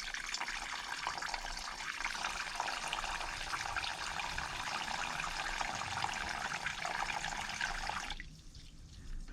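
Water rushing steadily out of the heating pipework for about eight seconds, then cutting off sharply.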